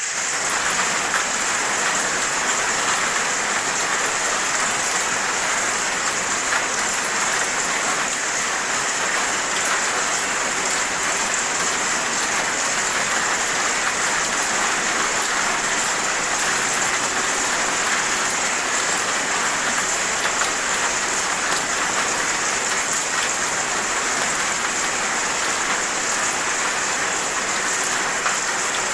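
Steady heavy rain falling on surfaces, a dense even hiss with many fine drop ticks, unchanging throughout.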